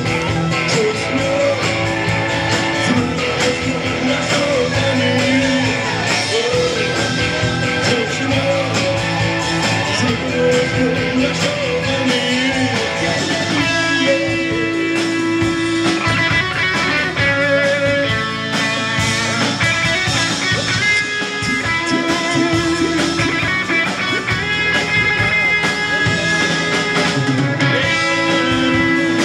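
Live rock band playing: electric guitar, bass guitar and drum kit, at a steady loud level with no breaks.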